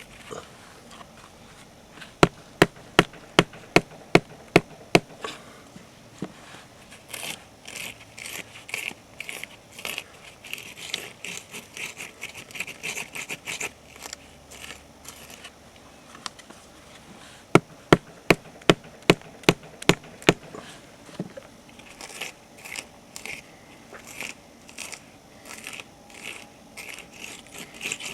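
Rubber hammer driving a stainless steel glue-in bolt into a resin capsule in a drilled rock hole: two runs of about eight quick blows, around three a second. Between them comes a rhythmic scraping as the bolt is twisted in the resin and aggregate to work it deeper.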